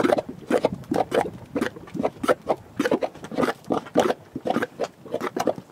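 Thick mud in a geothermal mudpot bubbling: gas bubbles bursting through the mud in quick, irregular plops, several a second.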